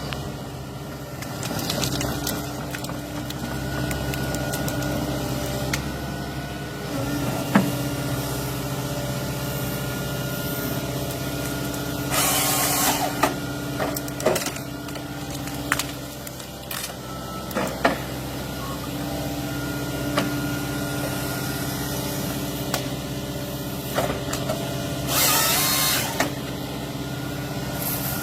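Heavy machine's engine running steadily, with scattered sharp knocks and two short hisses, about twelve seconds in and near the end.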